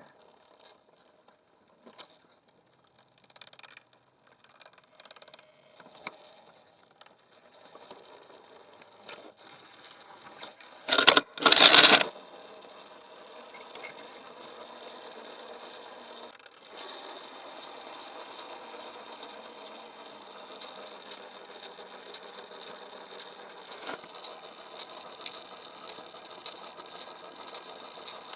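BRX01 RC crawler's electric motor and gear train whining steadily as it drives. Before that come scattered light clicks, then a loud double burst of noise about eleven seconds in. The whine drops out for a moment near the middle.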